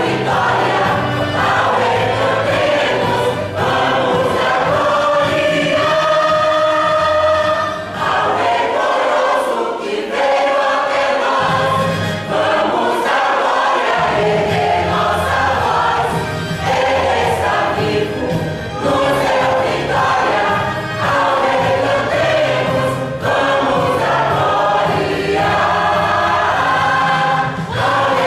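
Mixed church choir singing a gospel hymn with instrumental accompaniment. The low accompaniment drops out briefly about nine seconds in, then returns.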